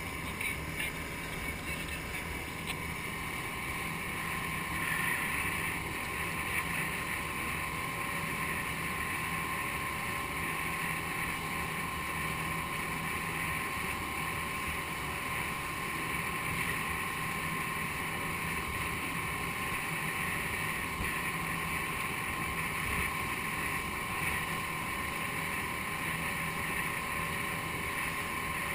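Rigid inflatable boat under way, its outboard motor running steadily with an even wash of water and air noise.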